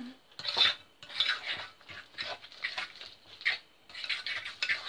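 Wet cake batter being stirred in a glass mixing bowl: repeated scraping, squelching strokes, about two a second, unevenly spaced.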